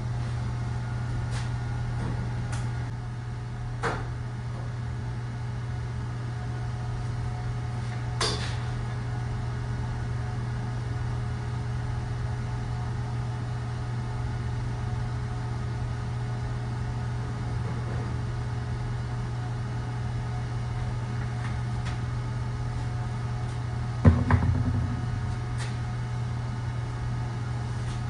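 A steady low hum with a few light clicks, and a short rattle of knocks about 24 seconds in, the loudest sound: parts and tools being handled on a workbench during metal fabrication.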